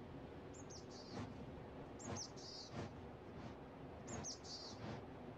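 A small songbird repeating a short high phrase, two quick down-slurred notes followed by a brief trill, about every two seconds. Faint crunching snowshoe steps in snow come in between, about four of them.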